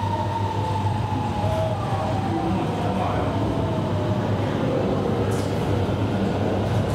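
Hanoi Metro Line 2A electric train pulling out of a station, heard from inside the car: steady running noise and hum, with the traction motors' whining tones gliding in pitch, one rising about three seconds in, as it gathers speed.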